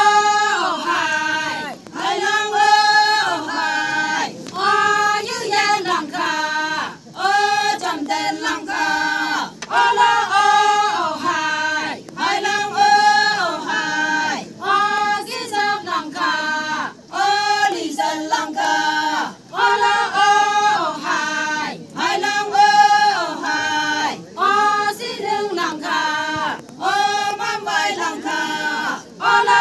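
A group of women singing a traditional Konyak Naga folk chant together in unison, one short phrase repeated over and over with a brief break between repeats.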